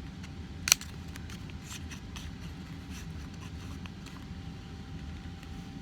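Folded origami paper crackling and rustling in the hands as its layers are pulled apart, with one sharp snap just under a second in, over a steady low hum.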